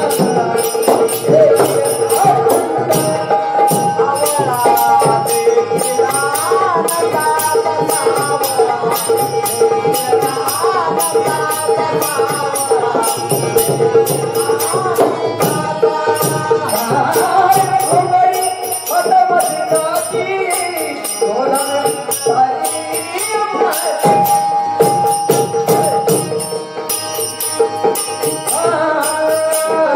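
Marathi gaulan devotional song: a voice singing a wavering melody over a steady held drone, with a quick regular beat of high metallic strokes.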